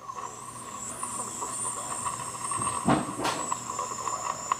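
General Electric C-403A tube radio's speaker giving a weak AM station that is mostly hiss and static with a thin high whistle, its plate voltage being brought back up from about 70 volts, where reception was fading and turning garbled. A short click about three seconds in.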